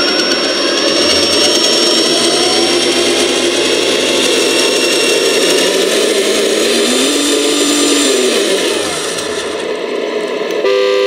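Cross RC SK2 sound module in a 1/10-scale RC pickup playing a simulated diesel truck engine through small temporary speakers. The engine note rises as the throttle trigger is eased on, holds, then falls back toward idle about nine seconds in. A short steady tone follows near the end.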